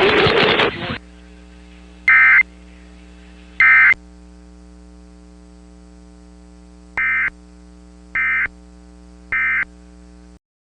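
Emergency Alert System end-of-message data bursts: short, shrill digital warbles of the SAME code, which close the alert. Two louder bursts come first, then three quieter ones about a second apart, over a steady low electrical hum. Loud noisy audio cuts off about a second in, and everything stops just before the end.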